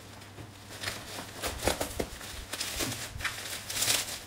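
Bubble wrap and plastic packaging crinkling and rustling as a parcel is handled and cut open with a knife, with scattered crackles and short squeaks. The rustling is loudest near the end.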